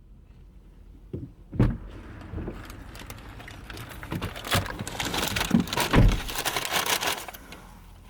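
Handling noises: two knocks, then several seconds of rustling and clattering with many sharp clicks that die away near the end.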